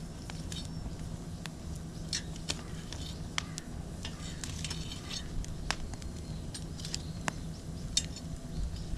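Wood fire crackling in a metal mesh fire pit, with scattered sharp clicks and light metallic clinks over a steady low hum.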